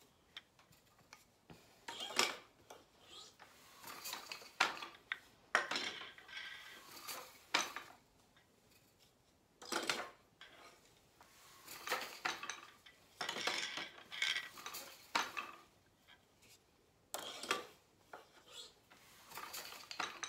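Scattered clicks and clacks from a wooden SAORI loom in short, irregular clusters, as the warp is loosened with a lever, advanced and tightened again, and shuttles are picked up and set down.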